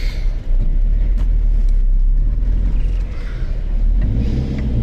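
Car moving along a dirt track, heard from inside the cabin: a steady low engine and road rumble, with the engine hum coming up a little near the end.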